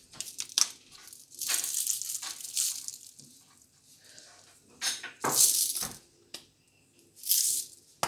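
Sprinkles shaken from their container onto the mug cake, rattling in three bursts with a few light clicks between.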